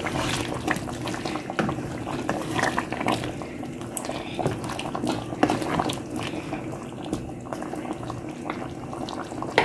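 Chicken and bottle gourd curry boiling in an open pot on medium heat, a steady bubbling with many small pops.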